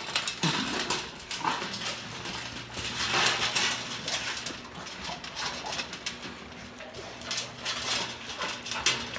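A dog feeding: dry kibble clicking and clattering in a metal pan as a puppy eats, with a brief dog whimper near the start.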